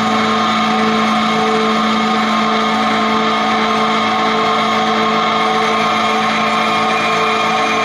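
Sustained ensemble drone, many musicians holding the notes A and E together: a steady chord of many held tones, with no rhythm or breaks.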